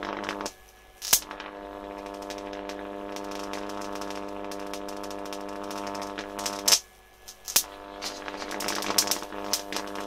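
A pair of large microwave oven transformers buzzing loudly at mains frequency while driving heavy current into a shorted rod. The buzz cuts out twice, about half a second in and again near seven seconds, and a sharp crack comes as it returns. Crackling picks up near the end.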